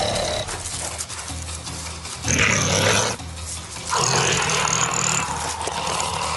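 An animal giving harsh, noisy calls in three bursts, each about a second long, over a low background music bed.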